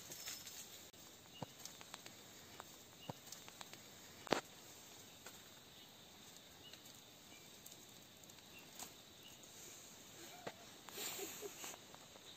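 Faint outdoor background with scattered small clicks and rustles, a sharper tick about four seconds in, and a few faint short high chirps.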